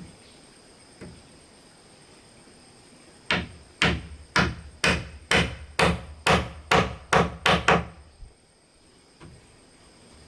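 A run of about ten sharp blows on wood, roughly two a second, starting about three seconds in and stopping near eight seconds.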